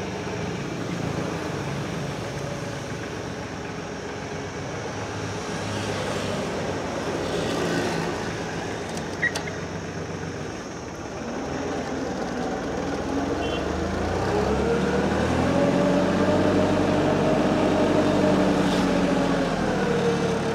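Diesel engine of a 26 hp Preet mini tractor running as it pulls away. In the second half an engine note swells, rising and then falling in pitch.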